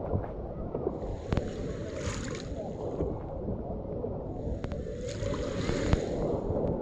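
Small waves washing onto the shore twice, each a soft hiss lasting about two seconds, over a steady wind rumble on the microphone.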